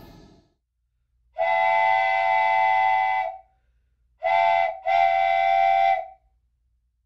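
Train horn sounding three steady blasts: a long one of about two seconds, then a short one and a longer one close together.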